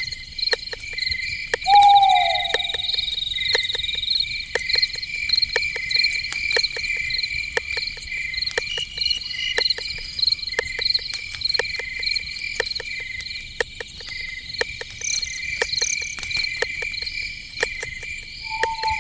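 Night insects, crickets among them, chirping steadily in high pulsing trills, with many sharp clicks throughout. A short, loud, falling animal call sounds about two seconds in, and a shorter one near the end.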